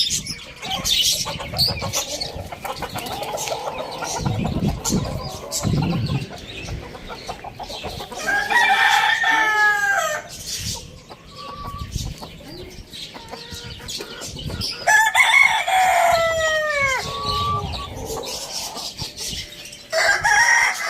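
Rooster crowing twice, each crow about two seconds long with a drop in pitch at the end, and a third crow starting near the end. Chickens cluck between the crows.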